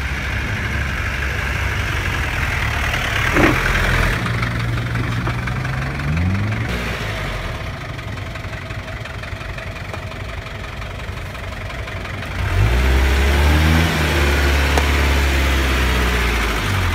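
Off-road 4x4's engine running at low revs, with a short rev that rises in pitch about six seconds in, then pulling louder and steady from about twelve seconds on as it climbs the muddy trail.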